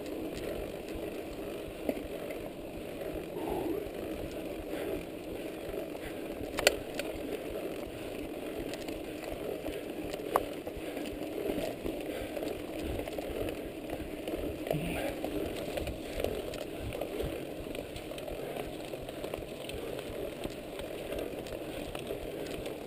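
Mountain bike riding along a dirt track: steady rolling noise of tyres and rattling drivetrain, with a few sharp clicks, the loudest about a third of the way in.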